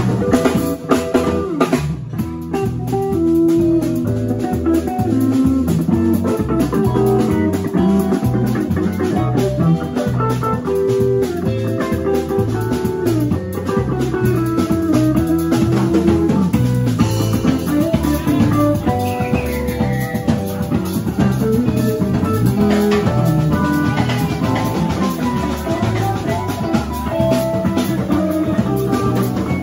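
Live band playing an instrumental tune: acoustic and electric guitars, electric bass and drum kit, with an electric stage keyboard.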